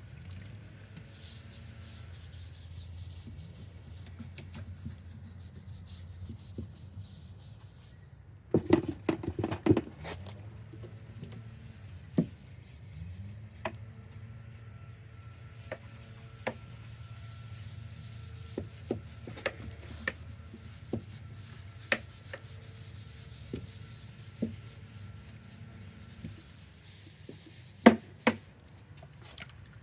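Brush scrubbing against a fiberglass boat hull's gelcoat, working in hull cleaner with rubbing strokes. Scattered clicks and taps sound over a low steady hum.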